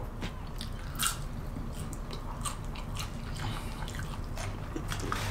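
Close-up eating sounds of a Popeyes sandwich: scattered crisp bites and soft chewing, the clearest bite about a second in.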